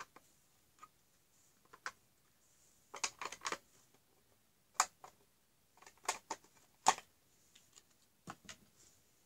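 Hard plastic parts of a toy wardrobe playset clicking and knocking together as the drawers are pushed back in. The taps are irregular, with a quick cluster about three seconds in and sharper single clicks near five and seven seconds.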